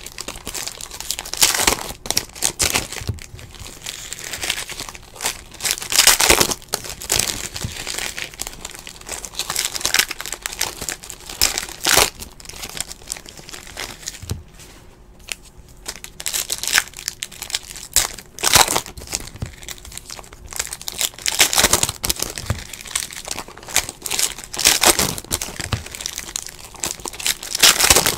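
Wrappers of 2017-18 Panini Hoops basketball card packs crinkling and tearing as packs are ripped open, in irregular bursts, briefly quieter about halfway through.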